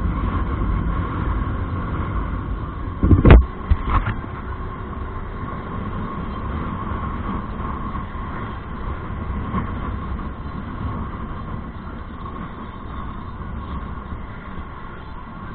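Ride noise from a Honda motorbike on a concrete road: a steady low rumble of engine, tyres and wind at the onboard camera, with a steady tone running through it. Two loud thumps land a little over three seconds in and about a second later.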